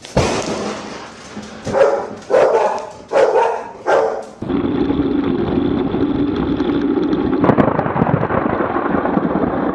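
A sudden loud crack of nearby thunder, then a dog barking four times. About four and a half seconds in, the sound gives way to a steady, muffled rushing noise.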